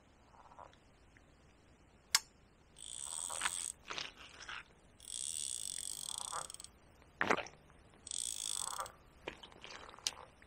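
Frogs croaking in several short bouts of about a second each, some with a high buzzing edge, with a few sharp clicks in between.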